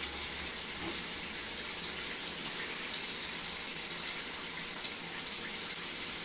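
Chicken pieces frying in hot peanut oil in a cast iron pot: a steady sizzle.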